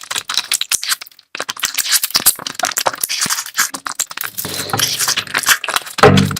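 Close-miked eating sounds: rapid wet clicks and crackles of chewing and mouth smacking, pausing briefly about a second in.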